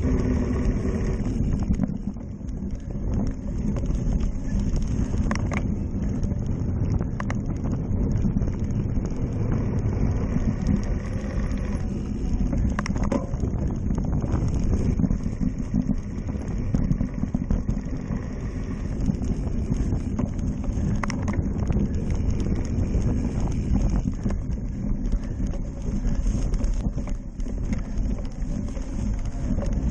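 Rumble and rattle of a cyclocross bike ridden over bumpy, leaf-covered dirt, picked up by a camera mounted on the handlebars, with wind on the microphone. A few sharp knocks stand out from the steady noise.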